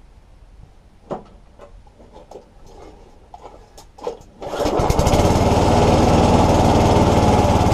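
Tecumseh lawn mower engine, long neglected, with its carburettor untouched, started by hand: a few light knocks, then about four seconds in it catches and runs steadily and loud.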